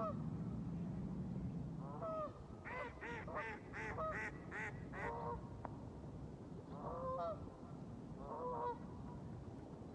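Geese honking: single calls at the start and about two seconds in, then a quick run of about seven honks, roughly three a second, followed by two shorter bouts near the end.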